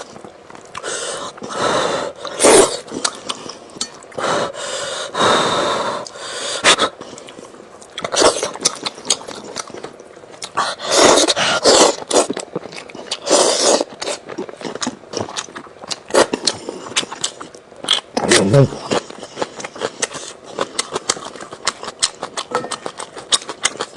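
Close-up mouth sounds of a person eating steamed chicken: chewing, lip-smacking and sucking on the meat and skin, as a run of irregular wet smacks and clicks. A short low hum that falls in pitch comes about eighteen seconds in.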